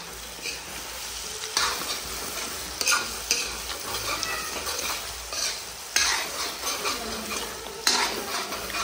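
Pork sizzling as it is stir-fried in a large metal pan, with a metal spoon scraping and knocking against the pan several times.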